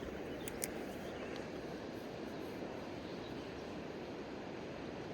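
Steady rushing of river water, with two short sharp clicks about half a second in.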